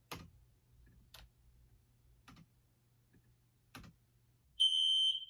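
A few faint sharp clicks about a second apart. Then, about four and a half seconds in, a smoke alarm starts sounding a loud, steady, high-pitched beep, set off by cooking smoke.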